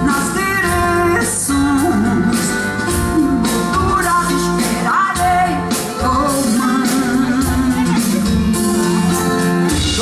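Live band playing a song with guitar and a steady beat while a singer sings over it, amplified through a PA during a sound check.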